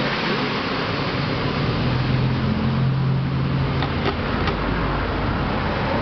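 Steady background noise with a low engine-like drone that swells about two seconds in and fades away about halfway through, like a vehicle passing. A few light clicks near the middle from hands working at the fan's plastic tilt joint.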